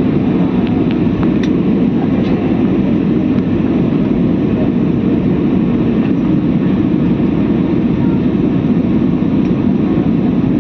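Steady, even engine and air noise of a passenger airliner in flight, heard inside the cabin, with a few faint ticks.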